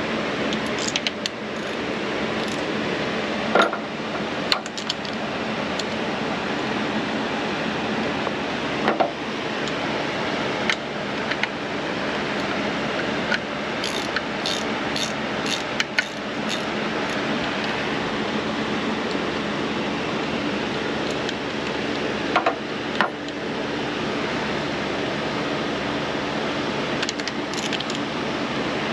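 Scattered light clicks and clinks of hand tools and engine parts as the spark plugs of a Yamaha 150 hp four-stroke outboard are worked on by hand, with a quick run of about six clicks around the middle. A steady hiss sits underneath.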